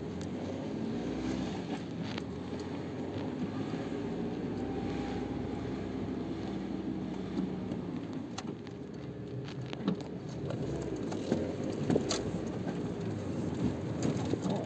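Mazda MX-5 NBfl's 1.6 four-cylinder engine running steadily at a fairly even idle of about 1100 rpm on a freshly installed Speeduino standalone ECU, heard from inside the cabin. Partway through, the car is driving, with engine and road noise and a few light clicks.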